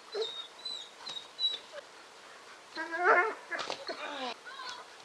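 Short whining vocal cries, the loudest about three seconds in with a wavering pitch, followed by a few shorter cries that fall in pitch. Thin high chirps come in the first second and a half.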